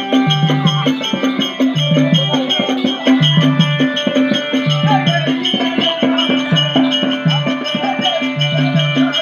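Tamil nadagam dance music played live: drums keep a steady, evenly repeating beat under sustained melodic tones, with a shaker-like rattle on top.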